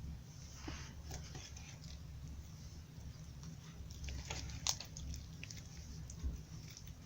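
Faint sticky squishing and small clicks of slime being kneaded by hand with lotion worked into it, with one sharper pop about two-thirds of the way through.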